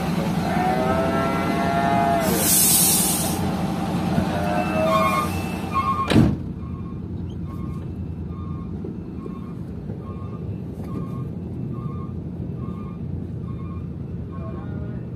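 A UD Quester truck's diesel engine running, with music playing over the first few seconds, a loud hiss of released air about two seconds in, and the cab door slamming shut about six seconds in. After the slam the engine is heard muffled from inside the cab under an even electronic beeping, a little more than once a second.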